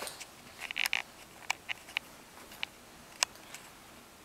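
Small sharp clicks and taps from a baby in a high chair: a short burst of noise about a second in, then five or six separate clicks spread over the next two seconds.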